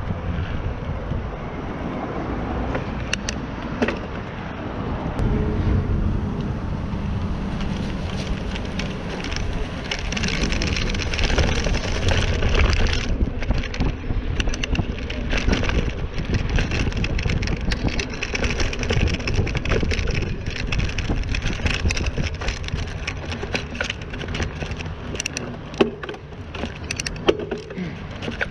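Mountain bike rolling along a dirt trail: steady tyre noise and low rumble, with many small clicks and rattles from the bike going over rough ground.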